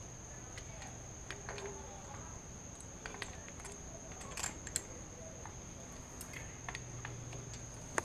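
Scattered light metallic clicks and taps as a timing chain tensioner and its bolts are handled and fitted onto a Ford 4.6 2V engine.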